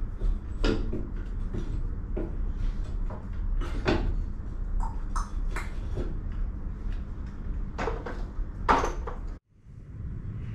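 Scattered sharp knocks and clunks, about eight of them spread out, over a steady low hum; the sound cuts out suddenly for a moment near the end.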